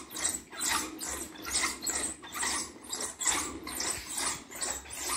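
Wooden foot massage roller rolling back and forth under the feet, its wooden rollers rattling in a steady rhythm of about two strokes a second.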